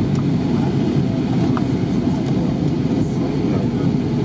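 Steady cabin noise inside an Airbus A320 on approach: an even low rumble of engines and airflow heard through the fuselage.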